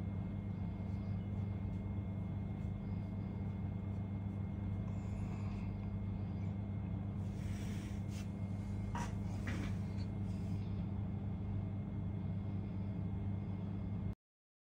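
A steady low hum, with a few faint clicks of a laptop touchpad about halfway through. The sound cuts out just before the end.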